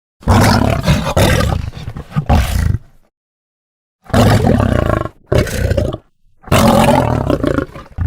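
Lion roars in about four rough, throaty bursts of one to two and a half seconds each, with dead silence between them.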